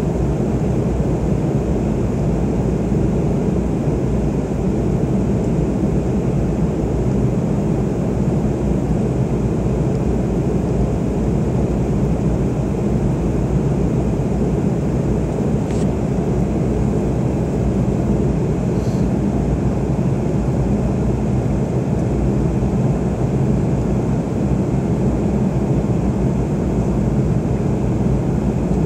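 Steady cabin noise of an airliner in flight: engines and rushing air as a constant low rumble, during the climb after takeoff.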